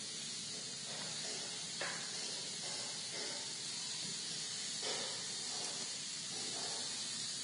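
Steady low hiss of background noise, with a few faint, short muffled sounds and a faint click about two seconds in.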